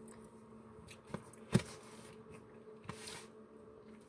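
Clear plastic food container being handled: a few sharp plastic clicks, the loudest about halfway through, and a short crinkling rustle about three seconds in, over a faint steady hum.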